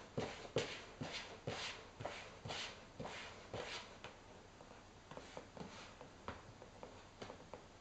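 Cats scratching and rustling against a cardboard box: a run of short scratchy strokes about twice a second, then lighter taps and clicks as a cat steps onto the box.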